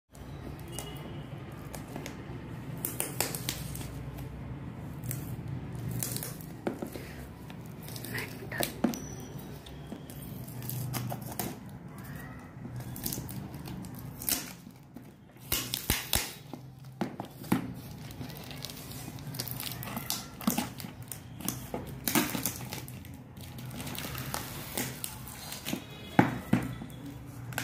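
Packing tape and a paper label being peeled and torn off a cardboard parcel by hand, with scattered crinkling and sharp rips, over a steady low hum.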